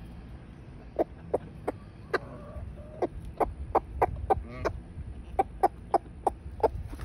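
Chickens clucking in short, repeated notes, about two or three a second, as they feed.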